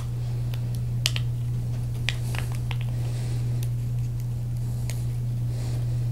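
A few sparse snips and clicks from small scissors cutting a thin plastic lighting-filter sheet, over a steady low hum.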